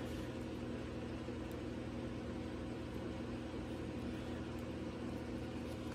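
Steady low hum with an even hiss: room background noise of a running appliance or fan, with no distinct handling sounds.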